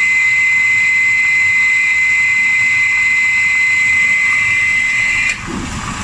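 Midea front-load washer's water inlet valve filling the drum, a steady hiss with a high whistle, which cuts off suddenly about five seconds in as the newly replaced water level sensor shuts off the fill. A lower hum follows.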